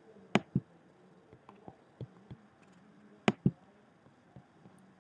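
Sharp clicks at a computer, coming as two quick double clicks: one about a third of a second in and another just past three seconds in. A few fainter ticks and a faint steady hum lie underneath.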